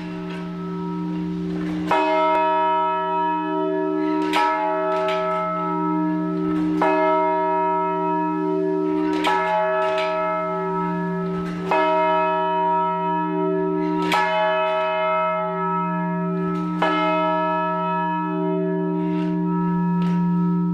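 A single church bell tolling, struck about every two and a half seconds, each strike ringing on with a deep, steady hum into the next.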